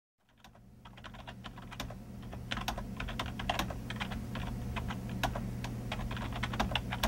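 Fast typing on a computer keyboard: a quick, irregular run of key clicks that fades in over the first couple of seconds. A steady low hum lies underneath.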